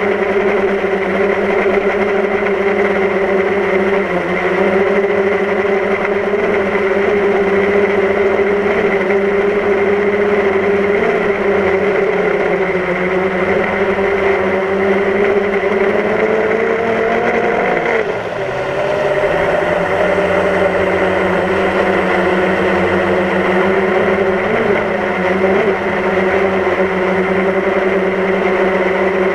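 DJI Phantom quadcopter's motors and propellers whining steadily in flight, heard from the GoPro mounted on the airframe. A little past halfway the pitch rises, then briefly drops with a slight dip in loudness before settling back, as the motors change speed.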